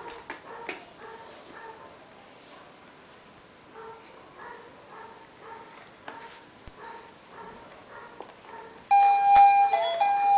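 A baby's short, soft vocal sounds repeat a few times a second. About nine seconds in, the baby walker's electronic toy tray starts playing a loud beeping tune of stepped single notes.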